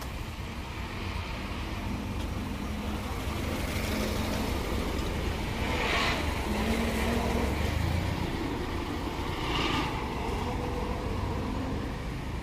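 Low, steady rumble of a motor vehicle running, with two short, louder rushes of noise about six and nine and a half seconds in.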